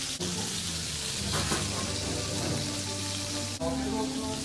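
Meat sizzling in hot cast-iron skillets: a steady hiss.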